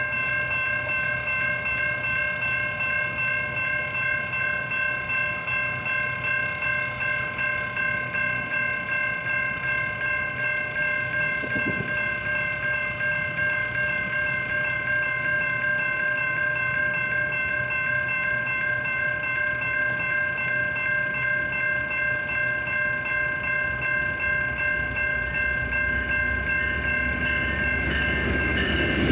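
Railroad crossing warning bell ringing steadily in a fast, even rhythm while the crossing is active. Over the last few seconds the low rumble of the approaching Metra train swells beneath it.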